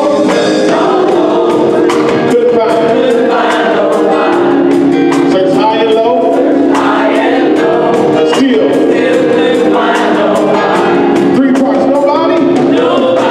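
Gospel choir singing in harmony, backed by a live band of drum kit, electric bass and organ keeping a steady beat.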